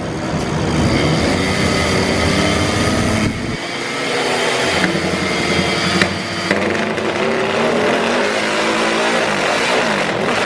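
Motorcycle engine running, its pitch rising and falling with the revs. The sound changes abruptly about three and a half seconds in, where the low rumble drops away.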